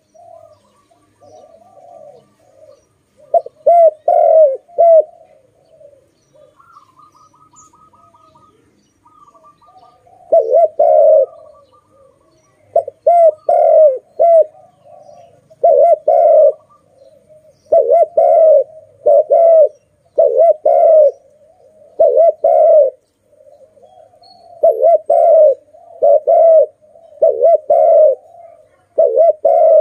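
Spotted dove cooing loudly in repeated short phrases. There are a few coos early on, then after about ten seconds a steady run of coos, one every second or so.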